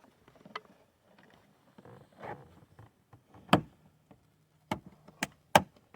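Plastic door-trim parts handled and fitted against a truck door panel: a few sharp plastic clicks and knocks with a little rustling, the loudest about three and a half seconds in, then three more close together near the end.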